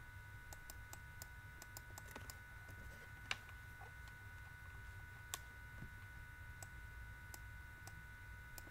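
Faint, scattered clicks of a computer mouse as writing is drawn on screen, with two louder clicks about three and five seconds in, over a faint steady electrical whine.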